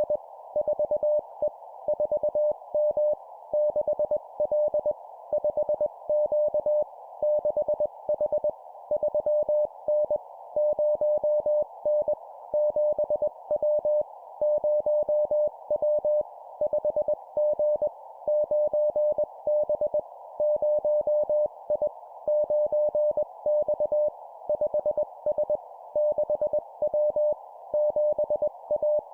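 Morse code (CW) at 20 words per minute: a steady tone near 600 Hz keyed on and off into dots and dashes, sent as short two-character groups of letters and numbers with brief gaps between them. Under it runs a steady hiss confined to a narrow band around the tone.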